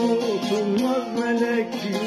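Bağlama (long-necked Turkish saz) played solo: a plucked melody with bending, sliding notes.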